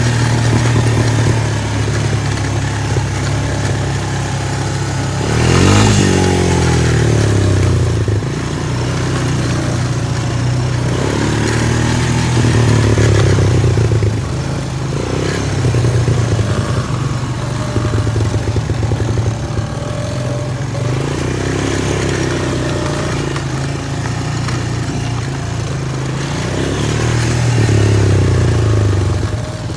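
Quad bike (ATV) engine running off road, revving up and easing off several times, loudest about six seconds in.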